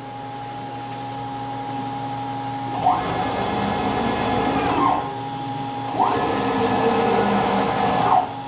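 A 560 oz-in stepper motor drives a mill's Z-axis ball screw in two jogs of about two seconds each, whirring up to speed and back down at the start and end of each. Between the jogs a steady high whine holds. The motor lifts the head without strain.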